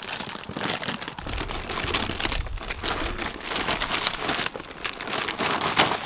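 Large plastic shopping bag crinkling and rustling as it is tipped over, with compost sliding and pattering out onto a plastic tarp: a continuous crackling rustle that stops suddenly near the end.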